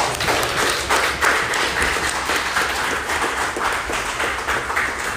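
Applause: many hands clapping in a dense, continuous patter.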